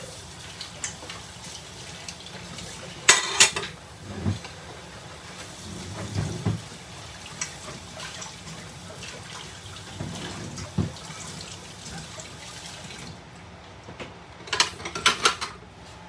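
Water running at a kitchen sink, with dishes and utensils clinking about three seconds in. The running water stops a little before another burst of clinking near the end.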